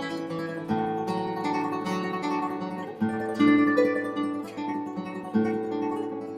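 Background music: an acoustic guitar playing plucked and strummed chords, with a fresh chord struck about a second in, around three seconds in, and again near the end.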